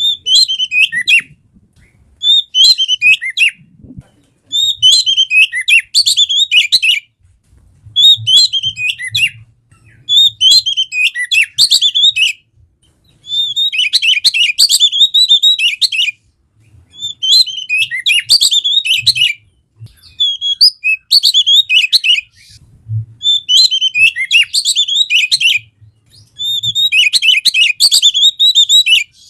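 Oriental magpie-robin (kacer) singing: a run of varied, fast whistled and chirped phrases, each one to three seconds long, with short pauses between them.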